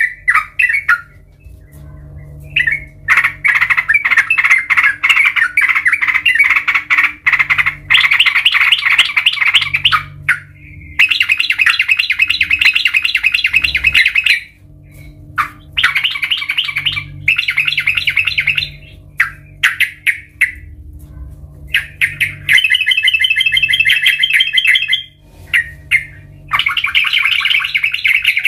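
Yellow-vented bulbul (trucukan) singing: runs of fast, chattering notes lasting a few seconds each, with short breaks between them.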